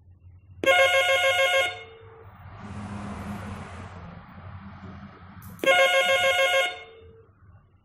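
Home telephone ringing: two trilling, rapidly pulsing electronic rings of about a second each, some five seconds apart. A softer rushing noise swells and fades between them.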